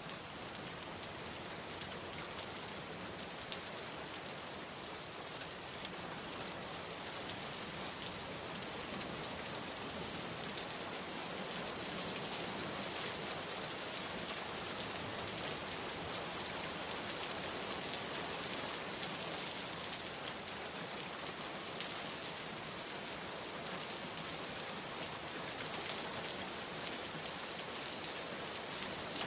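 Steady rainfall with scattered individual drops ticking on surfaces.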